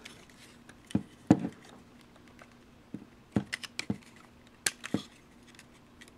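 Hard plastic parts of a large Yamato SDF-1 Macross figure clicking and knocking as fingers work it, pulling out the small support struts. The clicks come irregularly, about eight of them.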